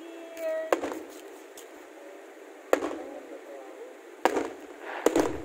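Fireworks shells bursting in five sharp bangs, each trailing off briefly, the last three within about a second.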